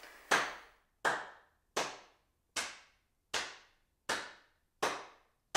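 Slow, evenly spaced hand claps, about eight of them, each ringing briefly.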